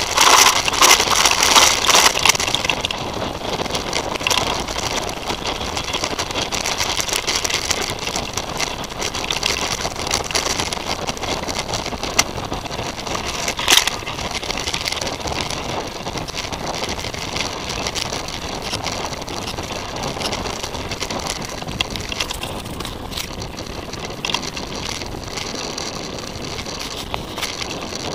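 Titus FTM mountain bike riding over a dirt forest trail: tyres rolling and the bike rattling with many small clicks over the bumps, heard through a handlebar-mounted action camera. It is loudest for the first few seconds, with one sharp knock about 14 seconds in.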